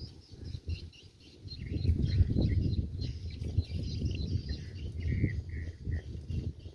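Small birds chirping in the background, many short high calls, with an irregular low rumbling noise that starts about a second and a half in and stays louder than the birds.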